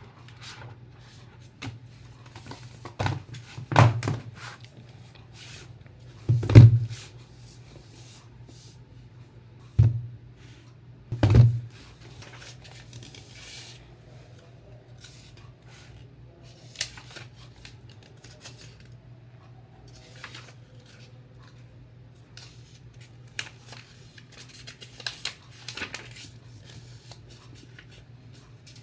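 Scissors cutting open parcel packaging, with a handful of loud sharp sounds in the first twelve seconds, then quieter clicks and rustling of the packaging. A steady low hum runs underneath.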